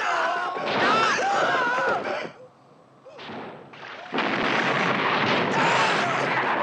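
Men yelling amid splashing water, then a sudden rifle shot about four seconds in, followed by loud, continuous splashing as bullets strike the river around them.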